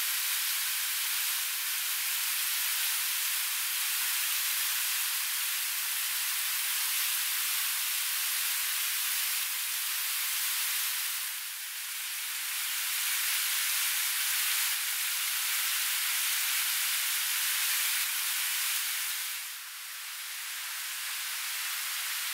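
A fast-flowing river's steady rush, heard as an even hiss that dips briefly about halfway through and again near the end.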